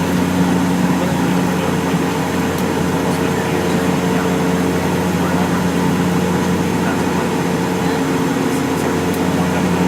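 Steady drone of an airliner cabin in flight: engine hum and air-conditioning rush, with several constant low tones over an even roar.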